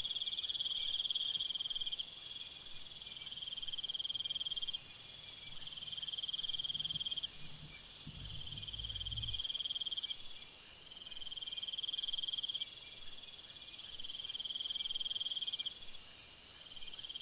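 Crickets chirping at night: repeated high trills of one to two seconds each with short gaps between, over a steady high-pitched chorus.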